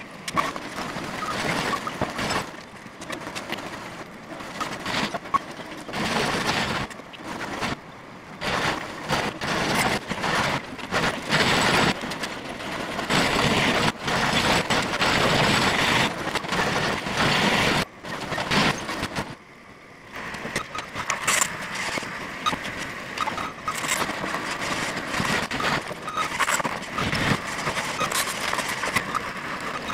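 Construction-site machinery noise, engines and knocks in jumbled snatches that change abruptly every second or so.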